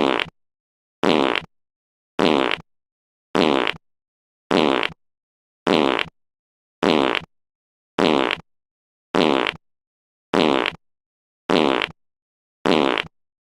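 A recorded fart sound effect looped over and over: the same half-second fart repeats about once a second, about a dozen times, with dead silence between each.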